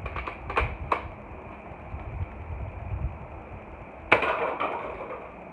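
A few sharp clicks of a Nerf blaster firing darts, then about four seconds in a sudden clattering crash that rattles on for about half a second as the target fort is knocked down.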